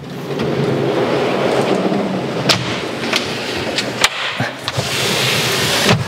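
Heavy-duty ball-bearing telescopic slides rolling under a large kitchen slideout as it is pushed in: a steady rumble, with a couple of sharp clicks and a brighter hiss near the end.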